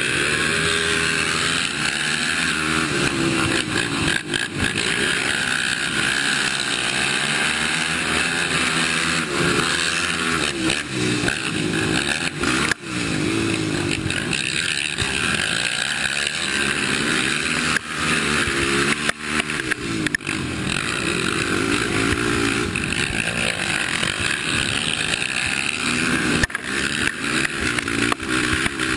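Race quad's engine at racing revs, heard close up from the rider's helmet; its pitch rises and falls again and again as the throttle opens and closes, with a few brief dips where the throttle is chopped.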